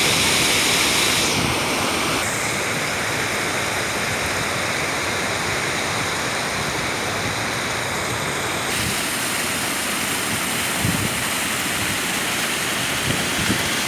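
Waterfall: water pouring and splashing in a steady rush. The high hiss shifts a few times, and there are a few low bumps near the end.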